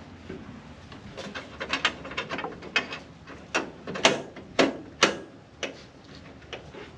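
Irregular metallic clicks and knocks inside a Fox Body Mustang door as a replacement door lock actuator and its linkage are worked into place by hand. The clicks start about a second in, grow loudest with a few sharp knocks near the middle, and stop shortly before the end.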